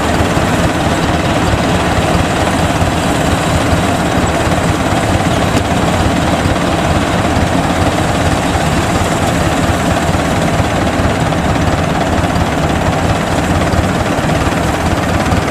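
Yanmar YH85 rice combine harvester running steadily under load while cutting and threshing lodged rice.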